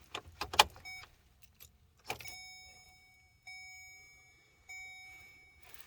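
A few sharp clicks of keys and switches being handled, then a car's dashboard warning chime, one pitched tone struck three times about a second apart and fading after each strike. No starter cranking or engine is heard: the car will not crank.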